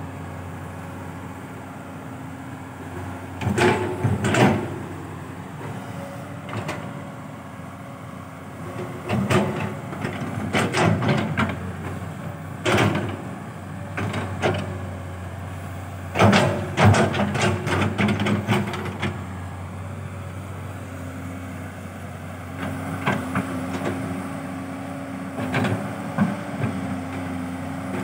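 Komatsu PC200-7 hydraulic excavator's six-cylinder diesel engine running steadily under hydraulic load, broken every few seconds by loud bursts of clanking and scraping as the bucket digs into and drags the soil. A little past two-thirds of the way through, the engine note steps up and holds higher.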